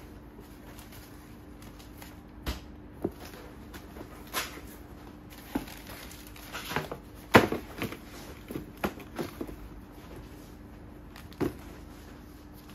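Tissue paper rustling and a cardboard shoebox being handled, with scattered short knocks as the box and its lid are moved and the lid is fitted on; one sharp knock a little past the middle is the loudest. A faint steady hum runs underneath.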